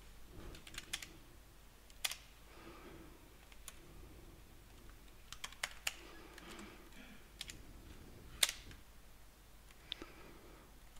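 Computer keyboard typing mixed with mouse clicks: a scattering of separate, light key and button clicks at irregular intervals.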